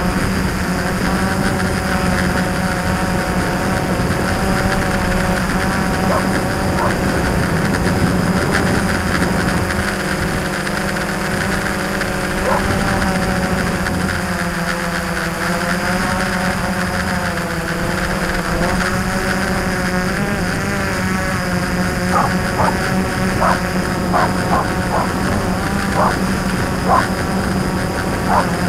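Quadcopter's electric motors and propellers whining, heard from the camera mounted on the craft, the pitch wavering up and down as it manoeuvres. A few short sharp sounds stand out over the motors near the end.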